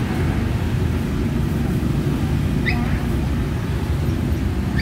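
Steady low rumble of road traffic, with a faint short high chirp a little over halfway through.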